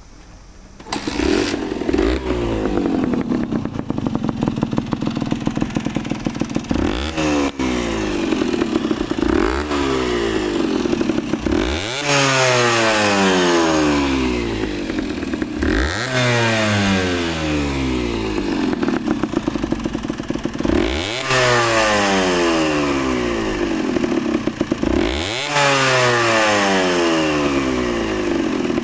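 Late-model Honda CRM80's two-stroke single-cylinder engine, fitted with a Pro Skill silencer on the stock expansion chamber with its valve removed, starting about a second in and then idling. It is revved sharply about six times, each rev falling slowly back to idle.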